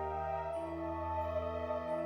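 Soft ambient background music: sustained chords over a steady low bass, shifting to a new chord about half a second in.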